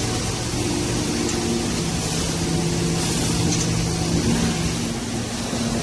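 Steady machinery noise: a continuous hiss with a low, even hum underneath.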